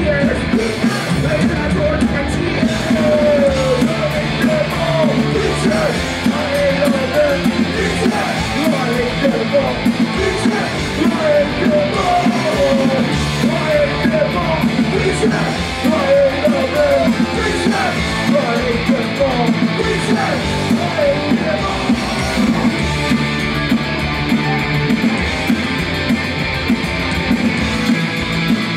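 Punk rock band playing loud and fast live: electric guitars, bass and drums, with a voice singing over them.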